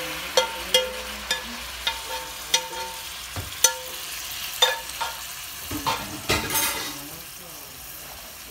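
A metal spoon clinking and scraping against a frying pan as tomato salsa is scraped out into a pot, about ten sharp ringing clinks, over a steady sizzle of goat meat frying in the pot.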